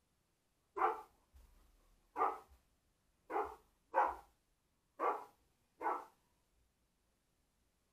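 Rottweiler barking six single barks, roughly one a second with short gaps, at a radio-controlled toy car.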